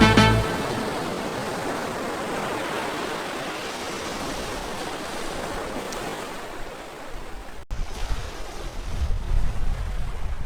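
Surf washing onto a sandy beach, a steady hiss that slowly fades. About three-quarters of the way through it cuts to low, gusty wind buffeting the microphone.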